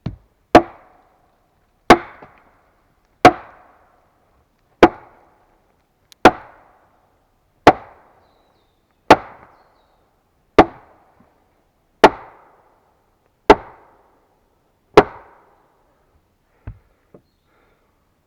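Axe chopping wood: eleven loud, evenly spaced strikes about one and a half seconds apart, each with a short ringing tail, then two lighter knocks near the end.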